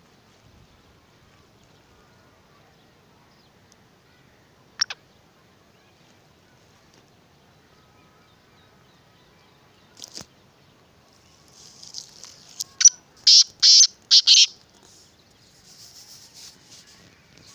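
Black francolin calling: a run of loud, harsh, grating notes in quick succession about three-quarters of the way in, with fainter calls after. Earlier come a single sharp falling note and a short click.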